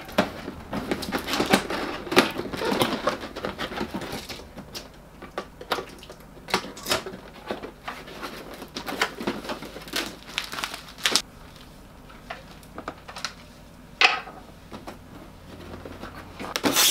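Cardboard and plastic packaging being handled as a boxed figure is opened: a box sliding and rustling with many small knocks and taps, busiest at first. One sharper knock comes near the end.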